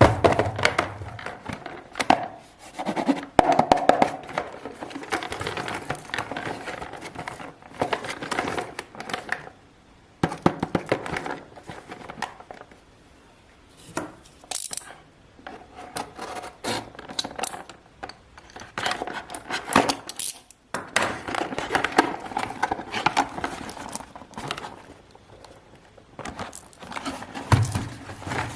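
Kinder Joy eggs being unwrapped by hand: foil wrappers crinkling and the plastic egg halves clicking and tapping, in bursts with short pauses between.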